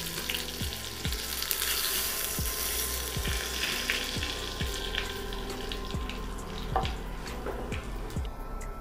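Butter and oil sizzling in a hot frying pan with halved garlic heads, a steady hiss that drops away near the end. A soft, steady beat of background music runs under it.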